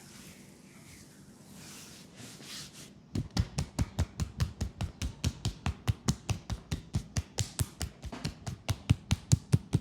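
Soft rubbing, then about three seconds in a fast, steady run of percussive massage strikes on a leg, about four to five taps a second, getting louder near the end.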